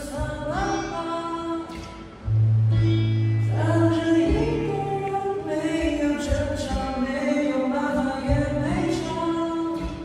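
A man singing a melody into a microphone, with acoustic guitar and long, steady low bass notes underneath.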